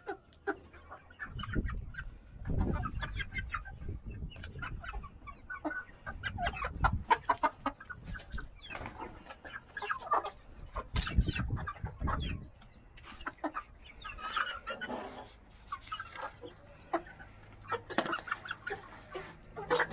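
A flock of young mixed-breed chickens clucking and calling in many short, overlapping calls, with a few stretches of low rumble.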